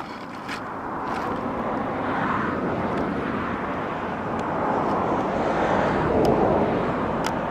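Rushing engine noise of a distant passing vehicle, building gradually and peaking about six seconds in, with a light click near the end.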